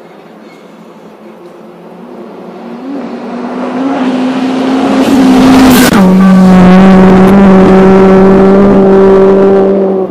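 Rally car engine at high revs, coming up fast and growing steadily louder. About six seconds in there is a short harsh burst and the pitch drops. The engine then runs loud at a steady pitch until it cuts off abruptly.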